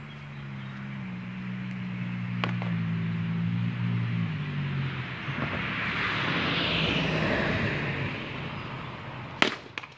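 A motor vehicle going by on the street: a low engine hum, then a rush of tyre noise that swells and fades away. A sharp knock comes partway through, and two sharp knocks near the end, the first the loudest sound of all.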